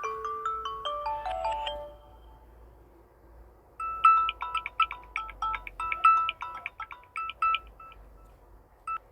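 Samsung Galaxy A01 Core stock ringtones: a melody of short pitched notes runs downward and ends about two seconds in. After a pause of nearly two seconds, another ringtone of quick, repeated short notes starts about four seconds in.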